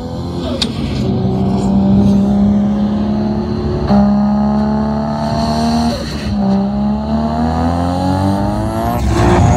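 Car engine accelerating hard through the gears: the pitch climbs within each gear and drops back at shifts about four and six seconds in and again near the end.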